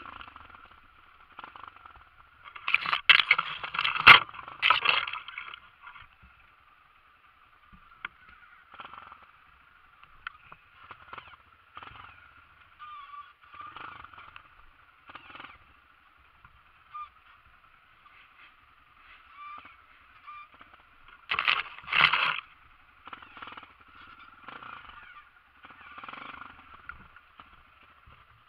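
Honda CRF dirt bike's single-cylinder four-stroke engine running at low revs, heard from a camera mounted on the bike, with scattered knocks from the bike working over rocks. It gets louder and rougher for a couple of seconds about three seconds in, and again near twenty-two seconds.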